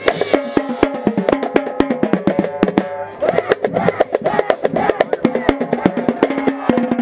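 Marching band playing, with tenor drums (quads) struck close up: a rapid run of drum hits over held band notes.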